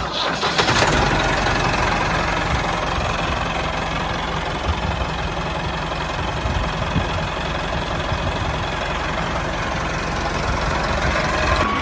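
A tractor engine running steadily at a low, even chug.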